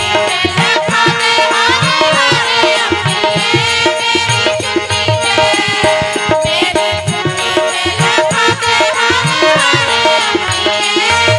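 Punjabi devotional music: a gliding melody over a steady hand-drum rhythm.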